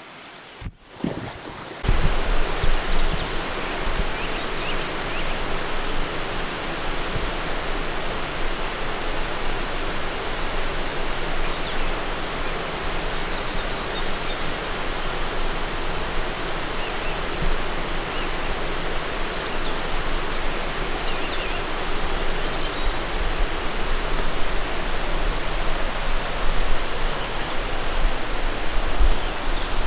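Steady rush of flowing water from a stream or waterfall, starting abruptly about two seconds in, with occasional low bumps from the camera being carried.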